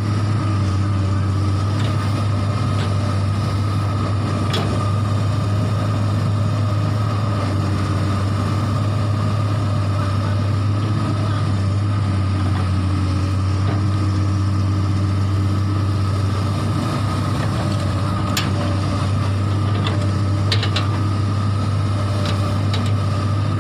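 Komatsu PC200 hydraulic excavator's diesel engine running at a steady speed, a constant low hum with a steady higher tone above it and a few light clicks.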